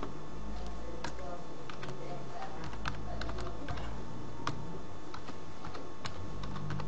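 Computer keyboard being typed on: an irregular run of sharp key clicks as a short word is entered.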